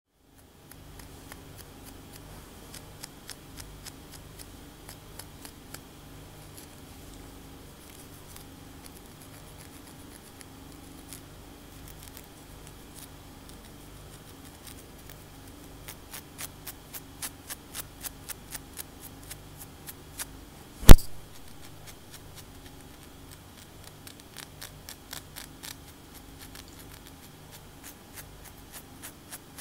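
Long fingernails scratching a cornrow-braided scalp: short, dry scratching strokes that come in quick rhythmic runs now and then. A single sharp, loud click about two-thirds of the way through is the loudest sound.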